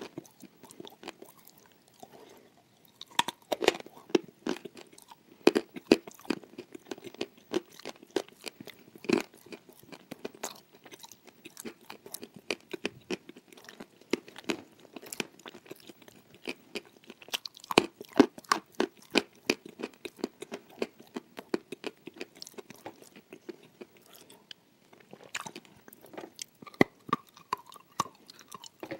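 A person chewing and crunching cookies close-miked, with many irregular crisp crunches and bites. The crunching is densest past the middle and eases off briefly a few seconds before the end.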